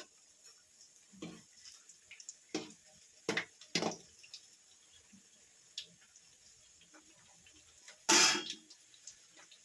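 Kitchen sounds while bajji fry in hot oil: a few short knocks and clicks of a utensil against the pan, then a loud burst of hissing, splashing noise lasting about half a second, about eight seconds in.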